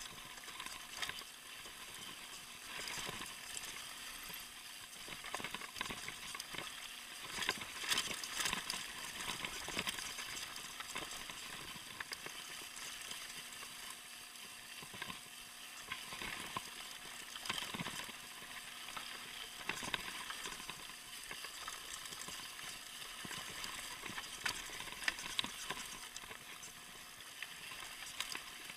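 Mountain bike rolling downhill over loose slate gravel, heard from a camera on the handlebars: a continuous crackle of tyres on stones, with frequent rattles and knocks from the bike.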